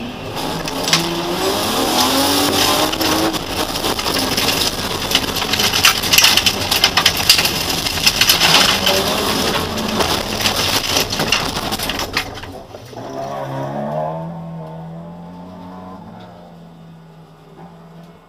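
Race car running flat out on loose gravel, heard from inside the cabin: a BMW E30's M50B25 straight-six over a constant clatter of stones and mud hitting the bodywork and windscreen. About twelve seconds in, the gravel noise stops suddenly and the engine drops to a quieter, lower note that slowly falls away.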